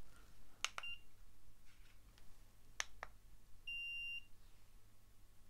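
Infrared forehead thermometer beeping: a short beep about a second in, then a longer beep about four seconds in as it shows its reading of 36.8 °C. A few soft plastic clicks come from handling it.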